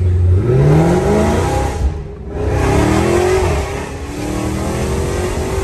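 Dodge Hellcat's supercharged 6.2-litre Hemi V8 accelerating hard. The engine note rises, dips briefly at a gear change about two seconds in, rises again, then levels off.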